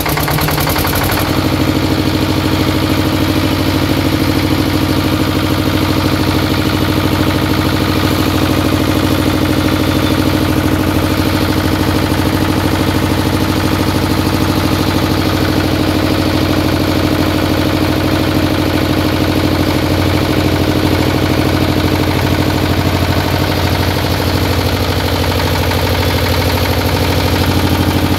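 Kirloskar 24 hp twin-cylinder, water-cooled diesel engine running steadily just after being started, settling into an even idle about a second in.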